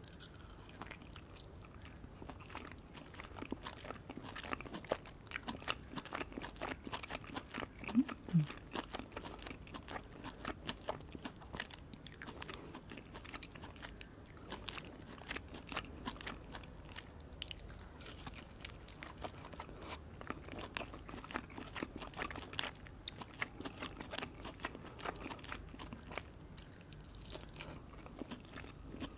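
Close-up eating of a grilled chicken chop: irregular bites and chewing with frequent small crunches and clicks throughout. A brief low falling hum about eight seconds in is the loudest moment.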